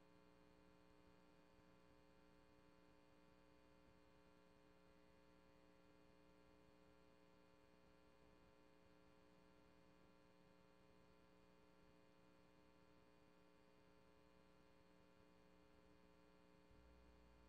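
Near silence: only a faint, steady electrical hum, the noise floor of a recording whose sound was lost. The lowest part of the hum grows slightly louder near the end.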